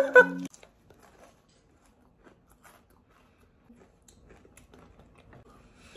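Faint, irregular crunching of Takis Blue Heat rolled corn tortilla chips being chewed. A short burst of music cuts off about half a second in, and a brief high beep sounds at the very end.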